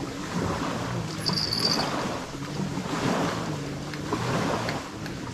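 Wind buffeting the microphone over moving water, with a short high whirr about a second in.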